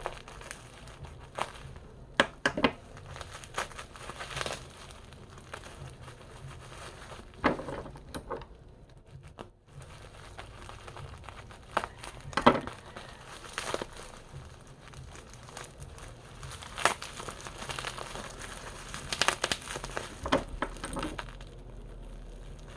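Earbud retail packaging being handled and opened: crinkling and rustling, with scattered sharp clicks and taps at irregular moments.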